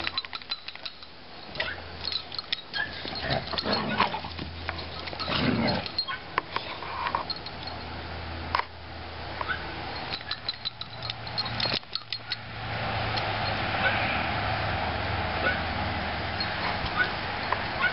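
Several dogs playing together on bare dirt: scuffling, quick steps and brief dog vocal sounds, with a steady background hiss over the last few seconds.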